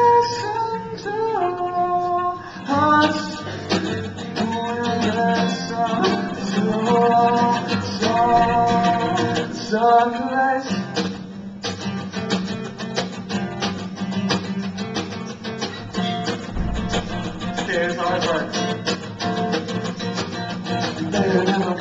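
Acoustic guitar strummed with a man singing long held notes over it; about eleven seconds in the singing stops and the guitar plays on alone.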